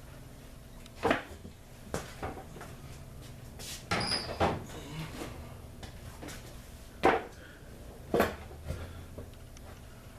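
Sharp plastic clicks and knocks, about half a dozen and loudest near the end, as a garage door opener's logic board is worked free of its plastic retaining tabs and pulled from the housing.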